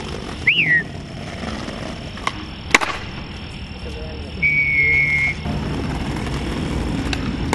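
Skateboard wheels rolling on smooth concrete, with two sharp clacks of the board about two and a half seconds in, the second the loudest. A short falling chirp sounds near the start, and a held high tone about halfway through.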